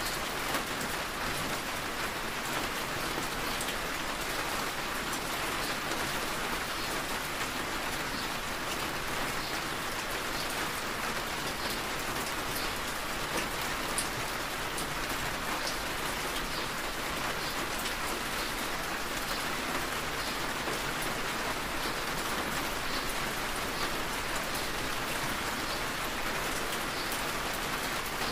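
Steady rain hitting a car, heard from inside the cabin, with many small drop ticks over an even hiss, as the car drives on a wet road.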